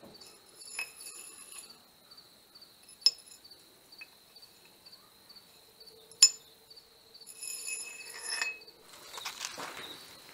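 Metal struck lightly and ringing: two sharp clinks about three and six seconds in, and longer ringing tones near the start and toward the end. An insect chirps rapidly and steadily underneath.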